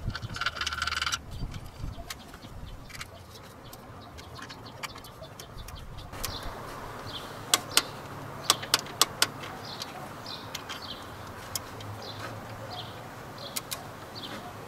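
A run of sharp metal clicks from hand tools working the timing belt tensioner bolt on a Toyota 1KZ-TE engine, coming every few tenths of a second in the second half, with short bird chirps in the background.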